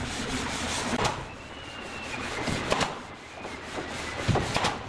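Cordless drill whirring briefly as it drives screws through a plaster cornice moulding, with sharp knocks and taps as the moulding is handled, the loudest a cluster near the end.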